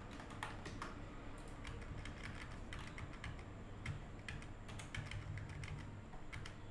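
Computer keyboard keys and mouse buttons clicking at an irregular pace, over a low steady hum.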